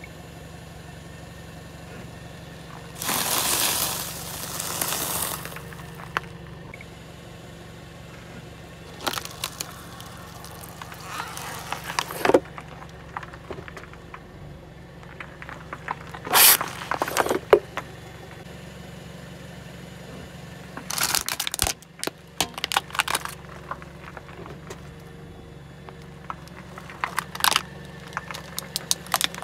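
A car tyre rolls slowly over objects on asphalt and crushes them, in a series of separate crunching and cracking spells, the first a long crunch of a stack of crisp brown sticks. In between, a plastic bottle bursts under the wheel. A steady low hum runs beneath.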